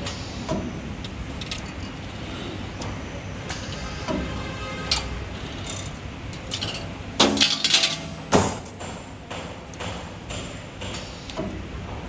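CNC 3D wire bending machine at work: irregular mechanical clicks and knocks with motor whirs as the bending head swings and the steel wire is fed and bent. The loudest moment is a cluster of sharp clacks with a short whine about seven to eight and a half seconds in.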